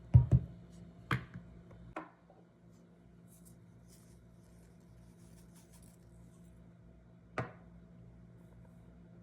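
Kitchen items being handled: a few sharp knocks and clicks in the first two seconds and one more near the end, over a steady low hum.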